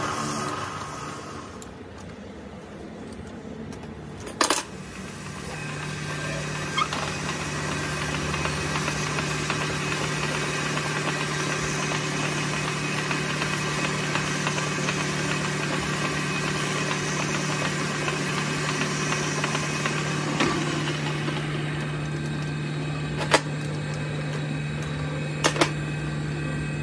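Metal lathe running steadily with a low hum as a steel ball stud spinning in its chuck is polished with abrasive cloth. The lathe starts about five seconds in, after a single sharp knock, and a few short clicks sound over it.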